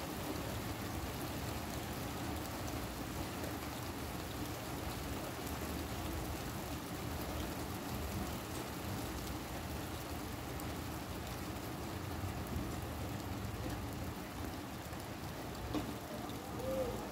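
Steady rain falling during a thunderstorm, an even hiss with no clear thunderclap.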